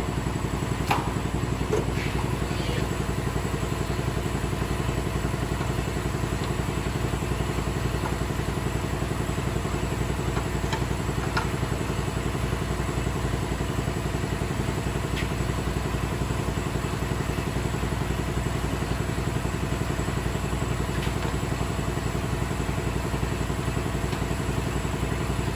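A motor-driven machine running steadily at an even level, with a fast, even pulse and a few light clicks and knocks about one to two seconds in.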